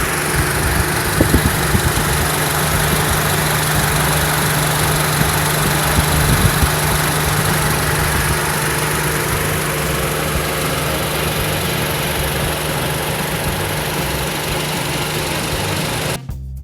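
Honda Step WGN (RG1) engine idling steadily, with a few sharper knocks in the first few seconds. The engine sound cuts off just before the end, giving way to music.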